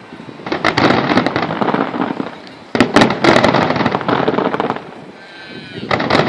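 Aerial fireworks bursting into dense crackling, in three waves: one about half a second in, a louder one opening with a sharp bang just before three seconds, and another near the end.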